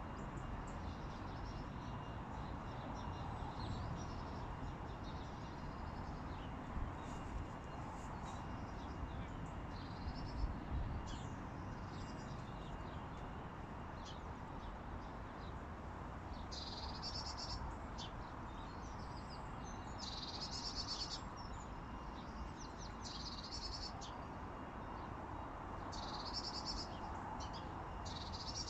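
Wind rumbling across the microphone, with a small bird's high chirping calls in short bursts several times in the second half.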